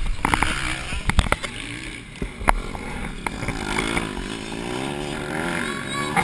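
Knocks and bumps of a helmet camera being handled during the first half, then motocross bikes' engines revving, their pitch rising and falling.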